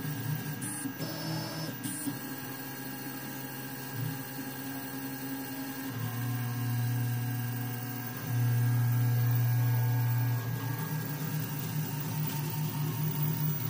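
3D printer running a print, its stepper motors giving a steady low hum whose pitch shifts every couple of seconds as the moves change. The hum is loudest from about six to ten seconds in.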